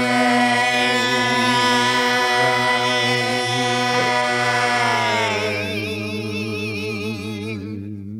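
Isolated rock vocal holding one long sung note with vibrato, with no band behind it; about five seconds in the pitch slides down and the voice fades out.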